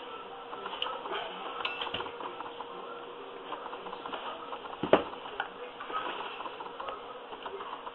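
Scratchy rustling and small clicks of hands working a carpet patch with a hot glue gun, with one sharper click about five seconds in. A faint steady hum runs underneath.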